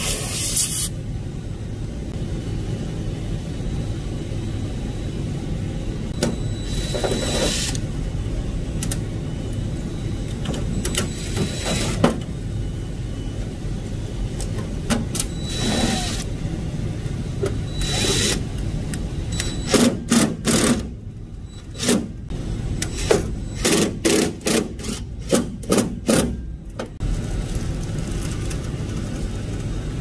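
Steady low rumble of mechanical-room equipment, with scattered scraping and tool-handling noises from work on a pneumatic receiver controller in a control panel. A quick run of short bursts comes about two-thirds of the way through.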